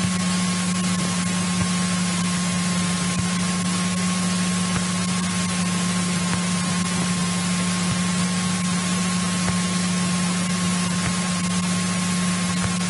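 Steady hiss over a constant low hum and a thin high tone, unchanging throughout: the cockpit of a 1964 Cessna 172E Skyhawk with its engine idling on the ramp before taxi.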